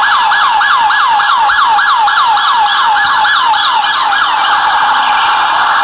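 Toy police jeep's electronic siren sounding in quick falling sweeps, about three or four a second, over a steady hum. The siren stops about four seconds in and the hum carries on.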